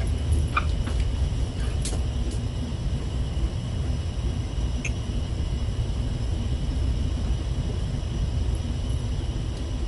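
Steady low rumble of a ship's machinery heard inside a cabin, with a few short light clicks from fishing-rod parts being handled.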